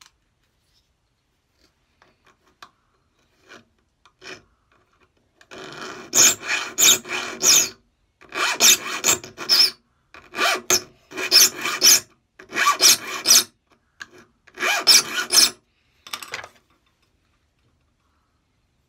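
A saw file rasping across the teeth of an old handsaw, sharpening its blunt teeth. A few light strokes come first, then from about five seconds in the filing goes in six or seven short runs of quick strokes, each about a second long.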